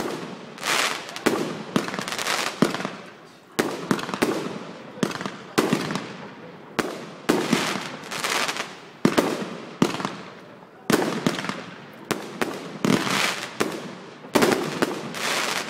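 Aerial fireworks display: a run of sharp bangs, roughly one a second, as shells burst overhead, each followed by a fading hiss.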